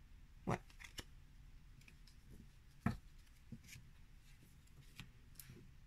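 Oracle cards being handled and set down: a few short clicks and slides of card against card, the loudest about halfway through.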